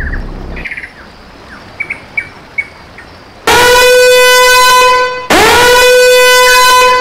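Two long, loud horn blasts, each swooping up into a held note, the first beginning about halfway through and the second following a moment after it ends; a dramatic sound effect. Before them a low rumble dies away in the first second and a few faint chirps are heard.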